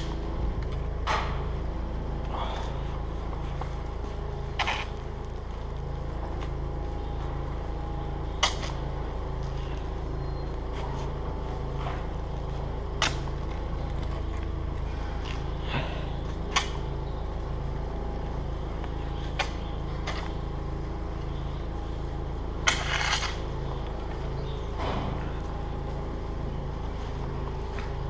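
Wheel loader's diesel engine idling steadily, with a slow pulsing low note. Over it, a manure fork scrapes and knocks briefly against the barn floor every few seconds as straw and dung are pushed into a pile.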